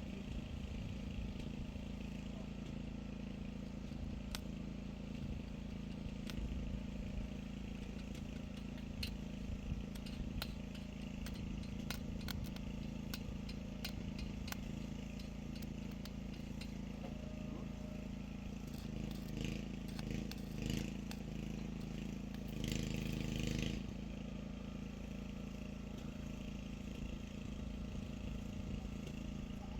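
An engine running steadily with a low, even hum. Scattered sharp clicks come through the first half, and there are louder rattling bursts a little over two-thirds of the way in.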